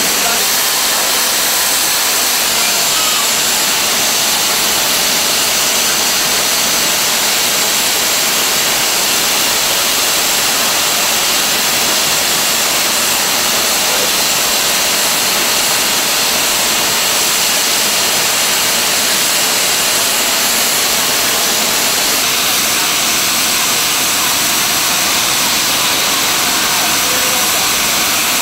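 Black 5 steam locomotive standing with its safety valves blowing off: a loud, steady rush of escaping steam that does not change, the sign of a boiler at full working pressure.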